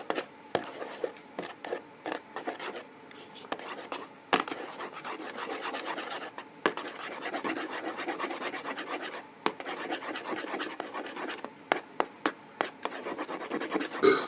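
Slime being stirred and scraped around a container, a run of irregular scrapes and small clicks, with a sharper knock about four seconds in and another near the end.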